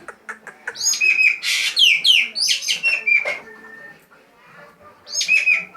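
Ekek geling (green magpie) calling: a quick run of dry clicks, then loud downward-sliding whistled notes with one harsh rasping burst among them. It goes quieter for a second or so, then the falling whistles start again near the end.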